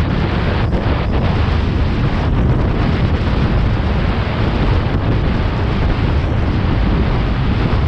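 Wind buffeting the microphone of a camera on a moving bicycle: a loud, steady rush of noise, heaviest in the low rumble.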